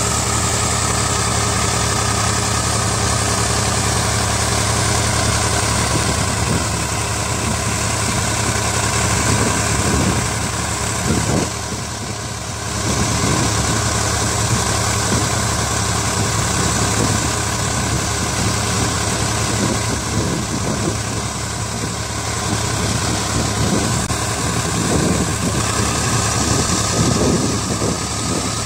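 Tractor engine running at a steady speed while it drives a tube-well water pump through a belt-and-pulley shaft, with a continuous low hum. The sound is briefly quieter near the middle.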